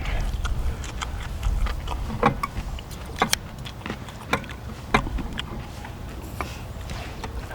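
Scattered sharp clicks and taps of eating utensils against dishes and the pan while eating, over a low rumble of wind on the microphone.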